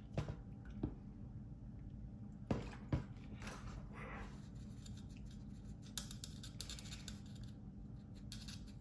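Light clicks and scratching as small hobby tools and model parts are handled on a workbench, a few sharper taps among them, over a steady low hum.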